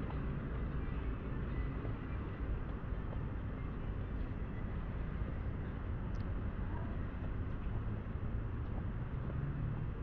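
Steady outdoor city ambience: a low, even hum of distant road traffic with no distinct events.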